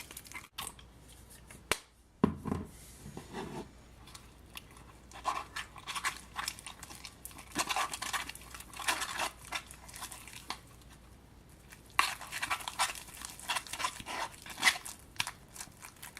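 Freshly activated slime made from a peel-off face mask, baking soda and contact lens solution being stirred and squished in a bowl: wet, sticky clicking and squelching in several bouts, with a short pause between them.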